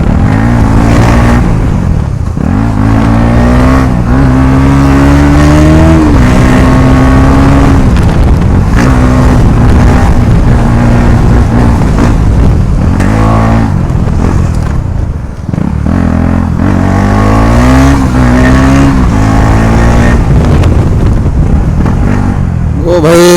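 KTM Duke motorcycle engine running loud with its exhaust silencer removed, revving up and dropping back repeatedly as it is ridden through the gears.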